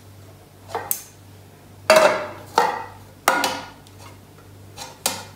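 Metal cake tins being handled and set down on a stone countertop, with a long metal ruler clinking against them: several separate clanks, each with a short metallic ring, the loudest about two seconds in.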